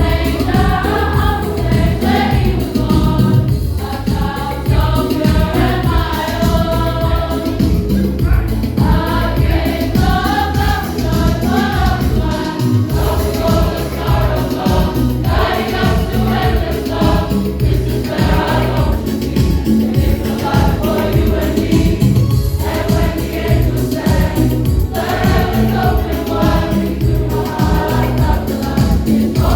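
A youth and Sunday School choir singing a Christmas song in unison over a backing track with a steady beat.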